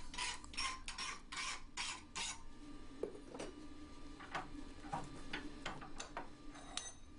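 Hand file rasping across a spring-steel punch blank held in a bench vise, in even strokes about three a second; the filing stops after about two seconds. After that come scattered light metallic clicks and taps as the work is reset in the vise.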